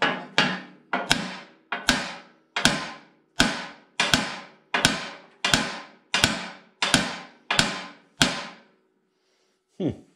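About a dozen hammer blows at a steady pace, each ringing briefly, struck on the side of a Belsaw sawmill husk to drive it off its shafts and split the husk apart. The blows stop about eight seconds in, with one more knock near the end.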